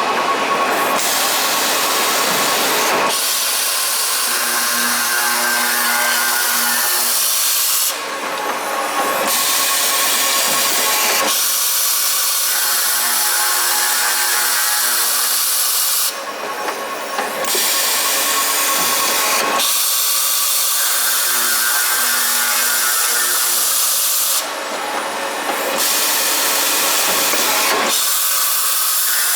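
A CNC pipe-cutting machine cutting 21 mm pipe in repeated cycles, with loud, steady machining noise. About every eight seconds the noise drops for roughly a second, between one cut and the next.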